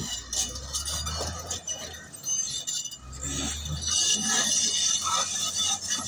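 Komatsu D155A crawler bulldozer on the move: its steel tracks clank and squeak over a low engine drone. The track clatter grows louder about four seconds in, as the engine drone drops away.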